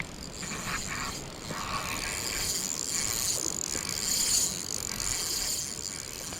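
Shimano 18 Stella spinning reel being wound, its gears giving a steady fine whir during the retrieve that eases off near the end.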